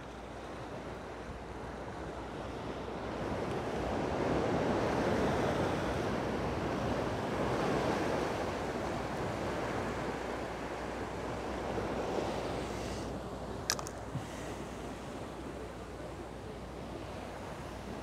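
Sea surf washing against the rocks of a breakwater, swelling to its loudest about four to eight seconds in and then easing off. Two short sharp clicks a little past halfway.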